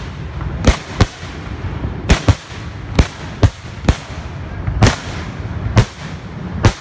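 Professional fireworks shells launching from mortars: about ten sharp bangs at uneven intervals, some in quick pairs, over a steady hiss.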